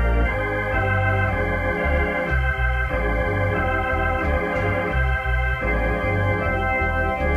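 Organ playing held chords over a bass line that moves from note to note.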